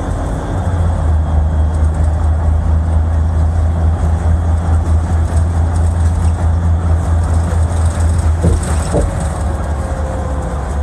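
Steady low drone of road and engine noise from a moving road vehicle, heard from on board. Two short knocks come about eight and a half seconds in.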